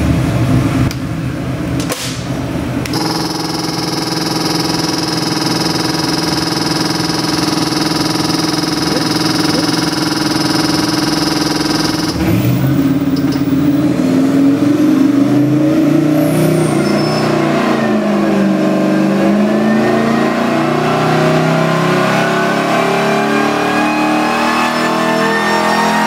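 Whipple-supercharged LSA stroker V8 on an engine dyno, running at a steady speed and then, from about twelve seconds in, climbing in pitch under load during a full-power pull, apart from a brief dip. The pull goes from about 2,300 to over 5,000 rpm.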